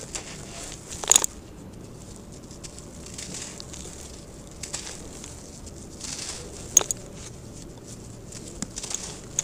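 Dry sand-cement lumps crumbled and crushed between the hands: a steady gritty rustle of falling grains, with sharp cracks about a second in and again near seven seconds.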